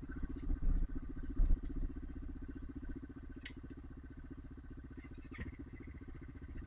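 Trail motorcycle engine idling with a steady, rapid beat. A few dull thumps come about half a second and a second and a half in, and a sharp click a little after the middle.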